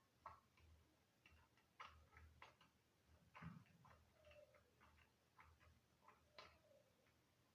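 Near silence: room tone with a faint low hum and scattered, irregular faint clicks, a slightly louder one about three and a half seconds in.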